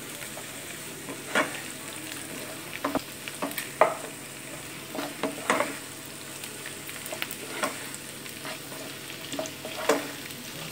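Sliced onions sizzling in hot oil in a kadai, stirred with a wooden spatula that knocks and scrapes against the pan at irregular intervals, every second or two.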